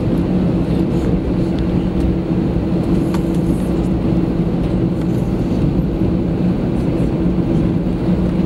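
Airbus A320 jet engines running at taxi power, heard inside the cabin: a steady drone with a low, even hum and no change in level.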